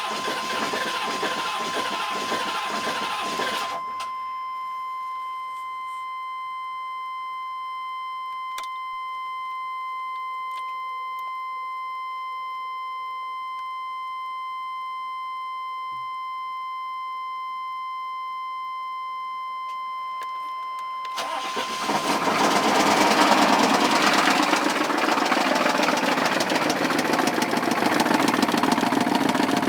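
A 6.5 L V8 diesel engine running rough and knocking, which the owner fears is rod knock, a spun bearing or a broken piston. It stops about four seconds in, leaving a steady high electronic warning tone. About 21 seconds in the engine cranks and restarts, running loud to the end.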